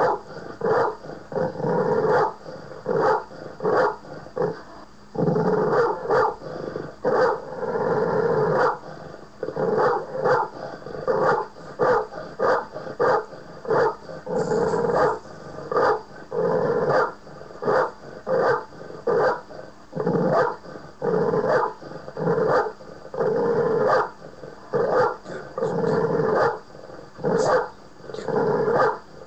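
Recorded dogs barking and growling in a YouTube video played back through speakers: short barks about once a second, with no let-up.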